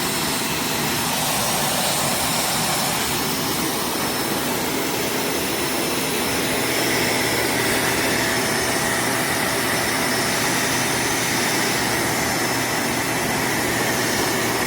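Vacuum cleaner motor running steadily at full power, loud, with a high-pitched whine over the rush of air.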